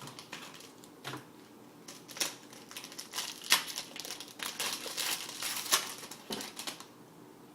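Plastic wrapper of a trading card pack crinkling and rustling as it is torn open and handled, with scattered sharp clicks and snaps. The crinkling is busiest in the middle of the stretch.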